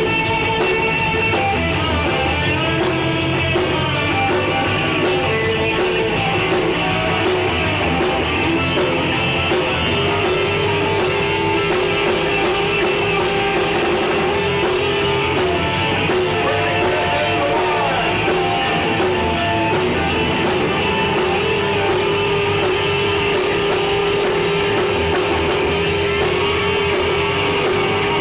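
Live rock band playing: electric guitar holding long notes over drums and cymbals.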